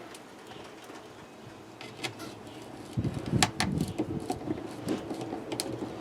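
Handling noise: a few scattered clicks at first, then louder irregular knocks and sharp clicks over rustling from about halfway through.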